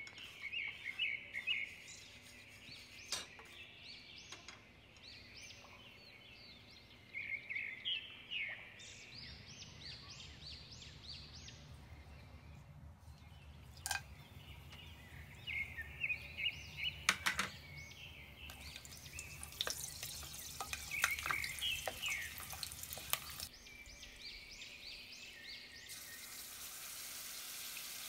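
Birds chirping in repeated quick bursts in the background, with a few sharp clicks against the pan. About two seconds before the end, hot oil starts to sizzle as ginger-garlic paste goes into it.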